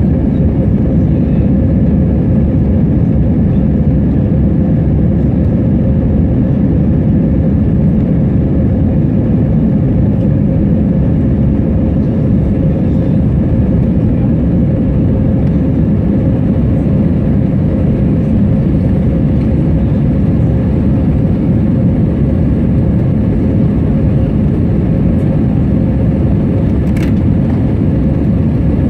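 Airliner cabin noise after take-off: the engines and rushing air make a loud, steady rumble with a constant hum over it. There is one brief click near the end.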